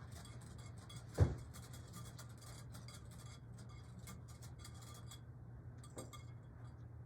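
Wire whisk stirring hot chocolate pudding in a glass mixing bowl: a rapid run of light clinks and scrapes against the glass, with one sharp knock about a second in. The clinking stops about five seconds in, followed by a single click; a steady low hum runs underneath.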